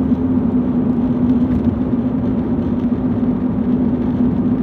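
Steady road noise inside a moving car's cabin: tyre and engine noise with a constant low hum.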